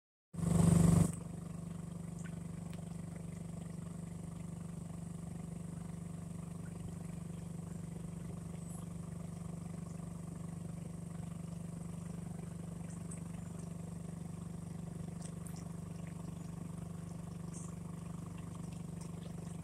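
Boat motor running steadily at an even pitch, with a louder burst in the first second.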